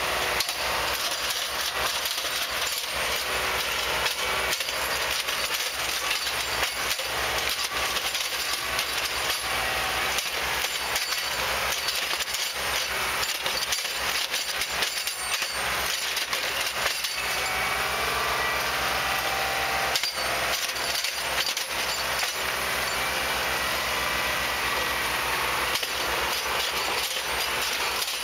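Hydraulic rail spike-pulling machine at work: its engine runs steadily under a constant clatter of metallic clanks and clinks as the pulling jaws grip and draw spikes from the ties. A faint whine joins in past the middle.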